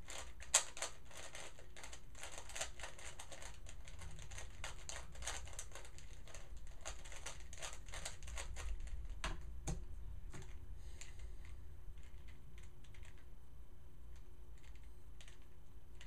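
A hand-held 3x3 Rubik's cube being worked by hand, its plastic layers clicking in quick runs of turns. There is one louder knock about half a second in. The clicks come densely for the first ten seconds or so, then thin out to scattered clicks.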